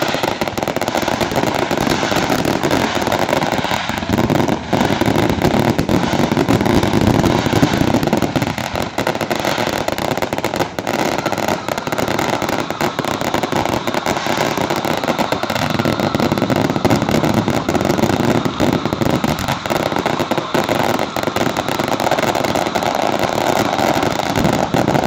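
Consumer fireworks going off in a continuous barrage: a dense, unbroken stream of rapid pops, bangs and crackling from multiple shots firing at once, like a finale.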